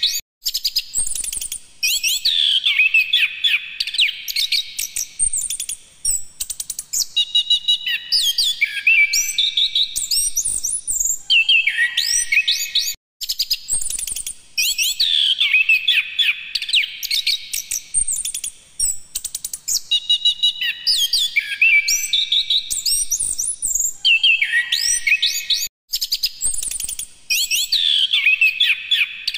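Chestnut-capped thrush (anis kembang) singing at full volume: long bouts of fast, varied whistled phrases full of rising and falling glides, broken by short pauses about every six or seven seconds.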